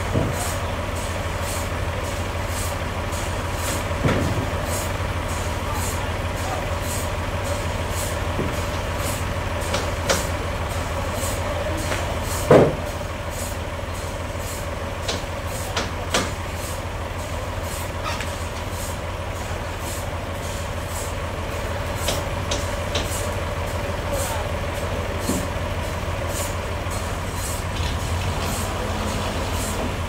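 Toyota 3.5-ton forklift's engine running steadily while it works among logs, with a few knocks of wood and steel, the loudest about midway.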